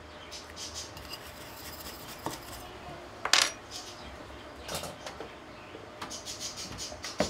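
Small clicks and light clatter of a screwdriver and a camcorder lens block being handled and set down on a workbench mat, with one sharper knock about three seconds in.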